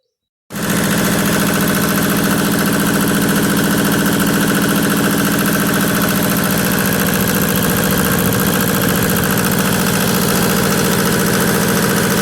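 Yanmar diesel tractor engine running steadily at idle, loud and even, cutting in abruptly about half a second in. It is the test run with the newly made fan assembly fitted.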